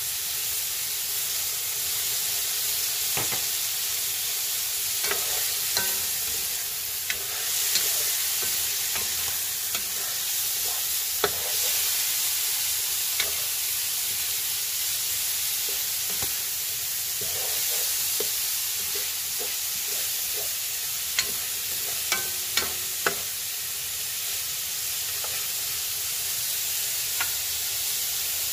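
Chicken liver, onions and peppers sizzling steadily in a hot metal wok just after soy sauce is poured in, while a spatula stirs them and now and then clicks and scrapes against the pan.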